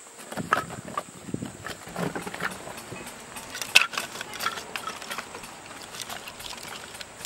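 Split firewood pieces clacking and knocking against each other as they are stacked onto a canvas log carrier, in a run of irregular wooden knocks with the loudest clack about four seconds in.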